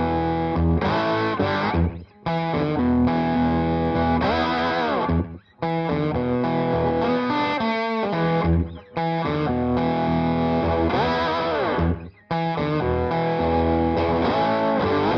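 Background rock music led by a distorted electric guitar, with bent notes and short breaks every few seconds.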